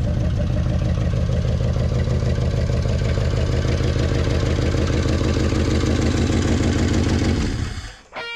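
The engine of an old bumpside Ford F350 truck idling steadily, fed from a jerry can after decades of sitting. The sound fades out about seven and a half seconds in.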